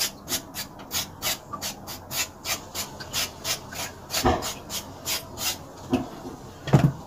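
Peeling a potato: quick rasping scrape strokes of a blade against the skin, about four a second, with a duller knock about four seconds in and another near the end.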